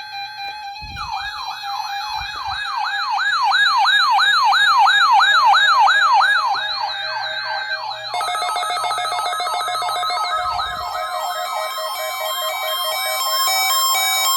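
Several NOAA weather radio receivers sounding their alert alarms at once, set off by the station's weekly test signal. A steady tone turns about a second in into a fast warbling siren sweeping up and down about three times a second. About eight seconds in, pulsed beeping alarms from other receivers join it.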